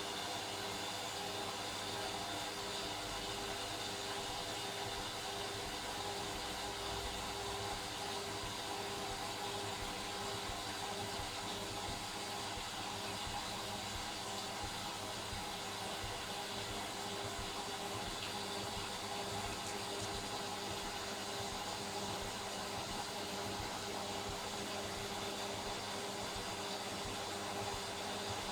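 Indesit Innex washing machine in its spin cycle, the drum spinning at a steady speed: an even motor hum and whine that holds one pitch throughout, over a rushing haze.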